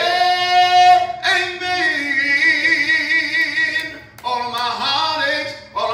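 A man singing a gospel song solo into a microphone, holding long notes with a wavering vibrato, with a short breath about four seconds in before the next phrase.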